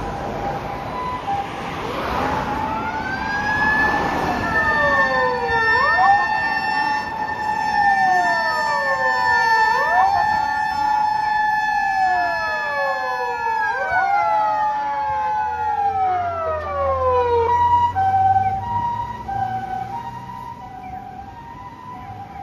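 Ambulance motor siren winding up to a high, steady wail and then winding down from about 14 seconds in. Under it, an electronic two-tone hi-lo siren alternates throughout, and a lower siren tone sweeps down again and again about every two seconds. A vehicle engine rumbles low near the end.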